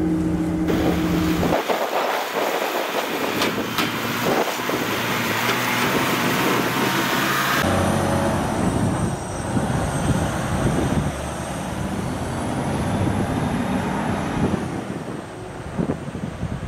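Motor vehicle noise that changes abruptly about a second in and again about eight seconds in. The later part is the steady road noise of a moving car.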